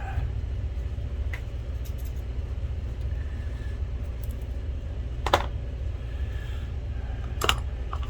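Steady low rumble of background hum, with a few short clicks and rustles of small parts being handled at the workbench, the clearest about five seconds in and again near the end.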